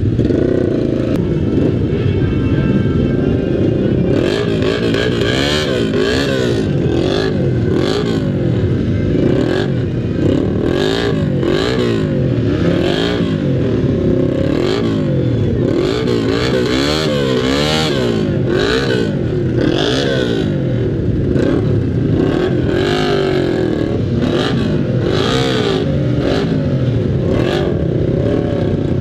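Motorcycle engines riding slowly in a group, their revs rising and falling over and over as the throttle is opened and closed, with frequent short rushing sounds over the top.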